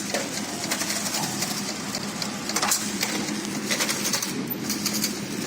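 Incense stick counting and packing machine running: a steady mechanical hum with scattered clicks and clatter.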